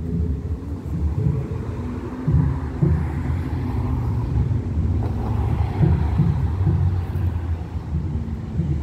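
A car driving past on the street, its sound swelling through the middle and then fading, over a low, uneven rumble.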